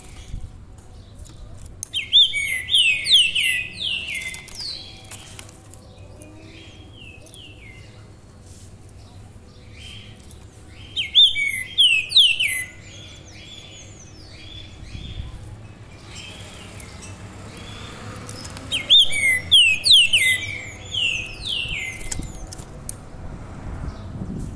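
A caged songbird singing three loud phrases of quick, falling whistled notes, about eight seconds apart, with softer single notes between them.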